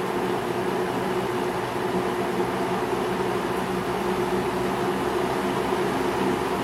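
1975 Kmart K-223 20-inch box fan running steadily: a rush of moving air over an even motor hum.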